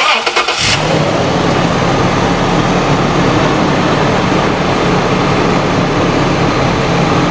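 2006 Toyota 4Runner engine cranking on the starter for under a second, then catching and idling steadily. It is idling so the automatic transmission's fluid level can be checked at the pan's overflow plug.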